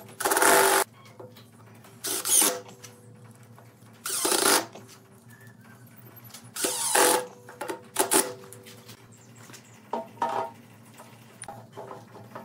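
Cordless impact driver driving screws through a lathe faceplate into a laminated wood blank, fixing the faceplate before turning. It runs in five short bursts, each under a second, about two seconds apart, followed by a few lighter knocks.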